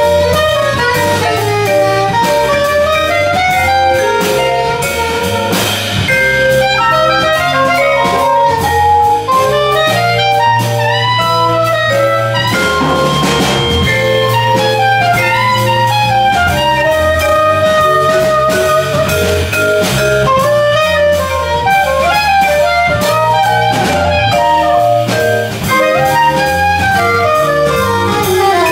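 Live jazz quartet playing a jazz waltz: soprano saxophone carries the melody over vibraphone, electric bass and drum kit.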